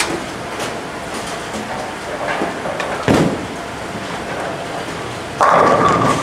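Bowling alley sounds: a steady rumble of balls rolling and pins falling on the lanes, a low thud about three seconds in, and a louder burst of noise near the end.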